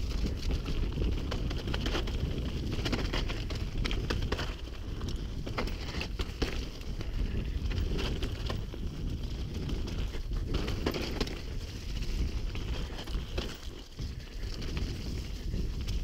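Mountain bike descending a dirt trail at speed: a steady low rumble of wind buffeting the microphone and tyres on the dirt, with frequent clicks and rattles from the bike over bumps.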